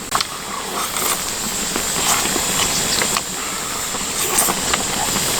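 Spicy chicken stew simmering on a cast-iron cauldron lid: a steady sizzling hiss with scattered small clicks.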